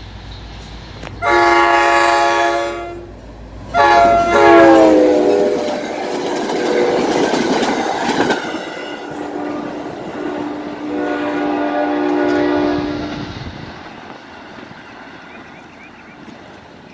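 New Jersey Transit commuter train passing at speed, its locomotive air horn sounding long blasts for the grade crossing; the pitch of the second blast drops as the locomotive goes by, followed by the loud rush and clatter of the cars passing. Another long horn blast sounds as the train pulls away, and the noise fades near the end.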